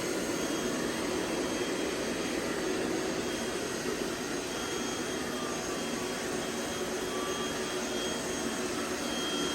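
Robot vacuum cleaners running on carpet, a steady whir with a faint, steady high whine over it.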